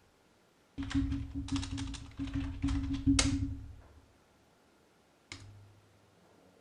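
Typing on a computer keyboard: a quick run of keystrokes lasting about three seconds as a short command is entered, then one more lone click about five seconds in.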